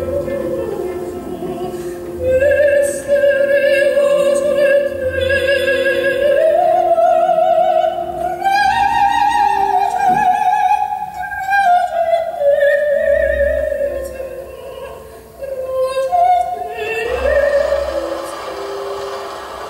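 Operatic singing used as dance music: a high voice holding long notes with wide vibrato, climbing to its highest pitch around the middle, over a softer sustained accompaniment.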